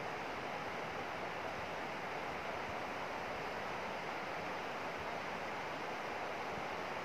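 Shallow river flowing steadily, an even rushing hiss of moving water.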